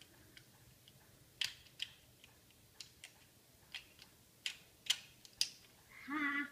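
Hard plastic toy pieces clicking and knocking together as a small child handles a toy motorcycle: a scattering of sharp, irregular clicks. Near the end comes a short vocal sound from the child.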